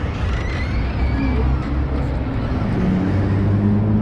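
Low street-traffic rumble, with a car engine's note rising in pitch near the end as it accelerates.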